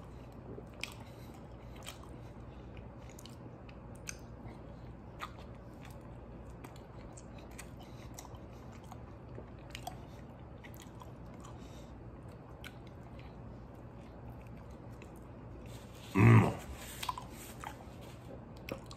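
A man chewing a mouthful of burrito, with soft wet mouth clicks scattered throughout. A brief loud voice sound, like a grunt, comes about three-quarters of the way in.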